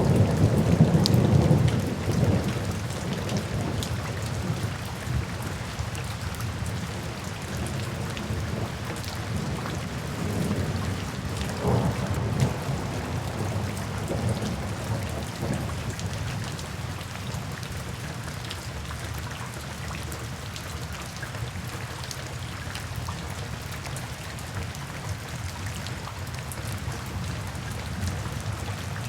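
Steady rain falling with rolling thunder: a loud low rumble in the first couple of seconds, another swell of thunder a little before the middle, then a gentler, even downpour.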